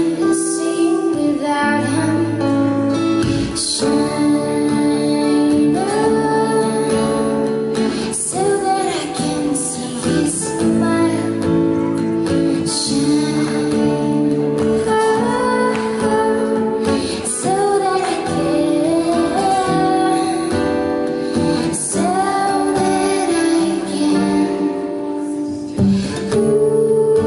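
A woman singing a song to her own acoustic guitar accompaniment, the voice gliding between held notes over the steady guitar.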